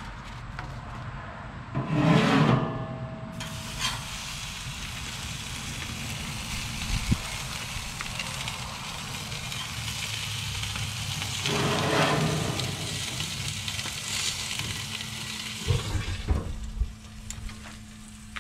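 A steak searing in a very hot cast iron skillet, heated to about 850 degrees inside a pellet grill's pizza oven. A loud burst comes as the meat hits the pan about two seconds in, then a steady sizzle, with a second loud surge around the middle. A few sharp knocks come near the end.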